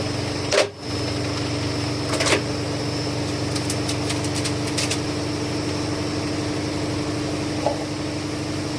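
Candy washing machine running at a steady high spin, its motor and drum giving a constant hum. A few short knocks and clicks sound over it, with a brief dip in the sound under a second in.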